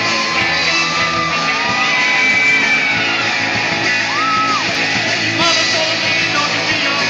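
Rock band playing live, a singer holding long notes that slide in pitch over the guitars and drums.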